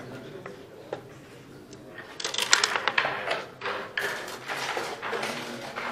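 Backgammon play: a sharp click about a second in, then a quick run of clicks and clacks from dice and checkers on the board around the middle, over a low murmur of voices.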